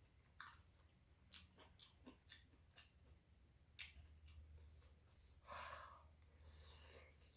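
Faint close-up chewing of tteokbokki rice cakes, with small wet mouth clicks scattered through and two longer hissy sounds about five and a half and six and a half seconds in.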